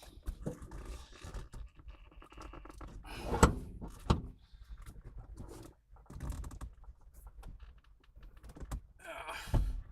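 Clicks, rattles and knocks of hands working the shifter and plastic center-console trim of a car, with a sharp knock about three and a half seconds in and a second one just after.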